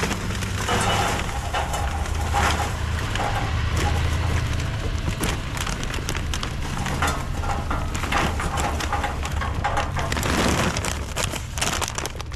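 Charcoal briquettes poured from a paper bag into the stove's perforated metal charcoal basket, clattering and rattling in an irregular stream, with the bag rustling.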